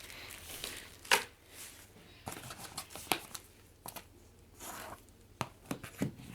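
Cardboard shipping box being handled and opened: scattered knocks, scrapes and rustling, with the sharpest knock about a second in.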